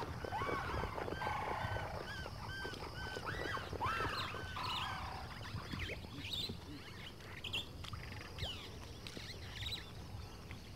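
A flock of birds calling, many short arching notes in quick succession; the calling thins out to scattered calls about halfway through.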